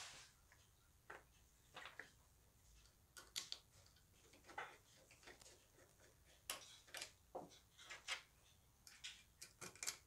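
Faint, irregular small clicks and taps of metal parts and a small screwdriver as the wooden grip is fitted back onto a Colt 1860 Army revolver's frame.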